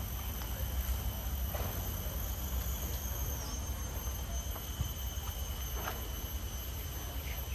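Steady high-pitched whine of two held tones that dips briefly in pitch partway through, over a constant low rumble.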